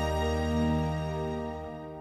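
Slow background music of long held chords, fading out; the bass notes drop away near the end.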